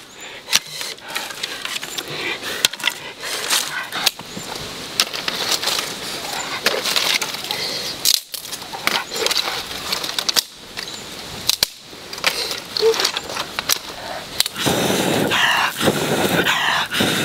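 Dry twigs snapping and crackling in many sharp clicks, then near the end a person blowing hard and steadily into smouldering kindling to bring up a flame.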